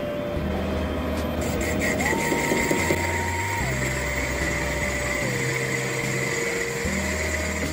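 Background music with slow gliding notes and a bass line, over the steady run of a metal lathe whose tool is cutting a spinning metal ring and throwing off chips.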